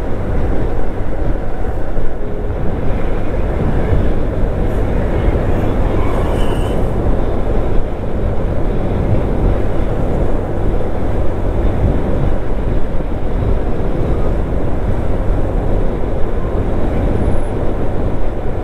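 Steady noise of a vehicle driving along a highway: engine, tyres and wind, dense and low.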